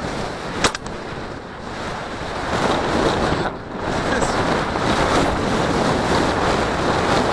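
Wind buffeting the microphone of a body-worn camera, a loud steady rush that grows stronger about two and a half seconds in, with one sharp click near the start.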